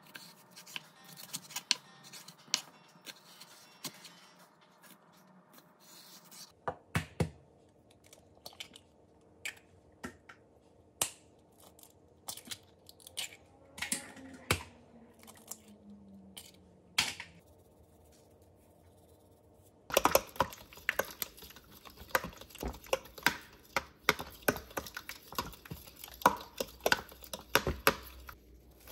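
A knife cutting green garlic stalks on a wooden cutting board, in scattered crisp cuts. After a change of scene there are a few sparse sharp taps, and from about two-thirds of the way in a fork clicks rapidly against a baking dish as raw eggs are whisked.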